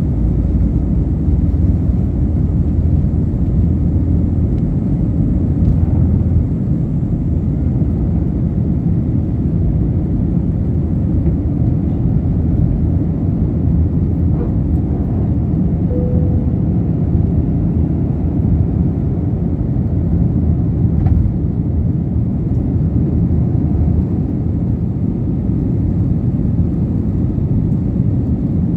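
Steady low rumble of an Airbus A321-200's jet engines at takeoff power, heard inside the passenger cabin as the airliner climbs out.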